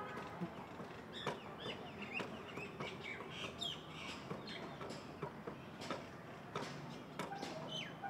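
Several birds calling at once, a busy run of short chirps and quick downward-sliding whistles, with scattered sharp clicks.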